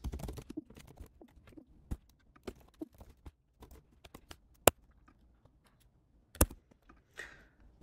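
Sparse, irregular keystrokes on a computer keyboard, with two sharper clicks about four and a half and six and a half seconds in.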